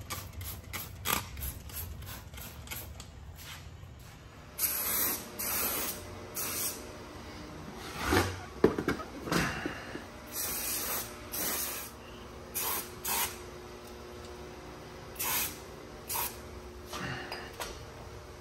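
Aerosol spray can sprayed in about ten short hissing bursts onto a new drilled and slotted brake rotor. Light handling clicks come before the spraying, and there is one sharp clink midway.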